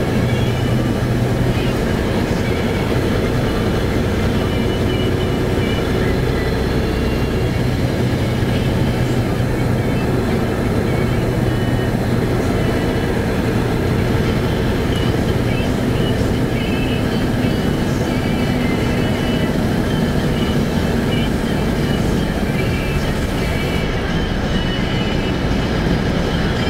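Steady engine drone and road noise heard from inside a moving vehicle's cabin, an even low hum that holds level throughout.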